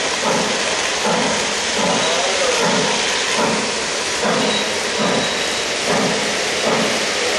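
Lionel O-gauge steam locomotive's RailSounds chuffing: a steady hissing chuff a little more than once a second, over model freight cars rolling on three-rail track.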